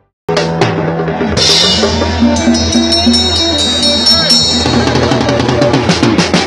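Drum kit played live: a busy run of snare and bass-drum strokes with cymbals, starting abruptly a moment in.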